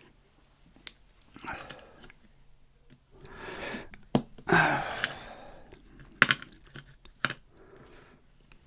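A metal tool prying and scraping at the retaining clip on the back of a padlock: sharp metallic clicks, about four, between short rasping scrapes.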